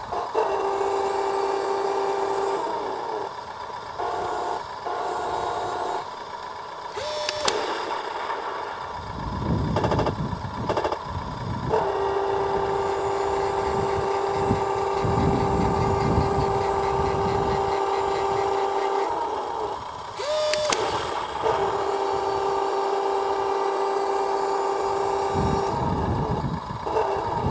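RC Centurion Mark 5 tank model's onboard sound unit playing a simulated engine idle, a steady electronic hum. Twice the hum breaks off, briefly rises in pitch, and a sharp click follows.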